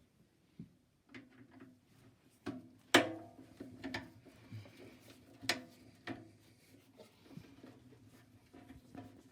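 Scattered knocks, clicks and rubbing of microwave parts and tools being handled during disassembly, with the loudest sharp knock about three seconds in.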